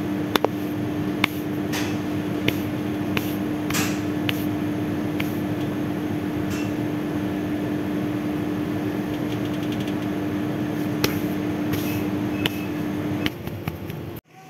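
Steady machine hum with a constant low tone, with irregular light clicks and taps over it; the hum stops shortly before the end.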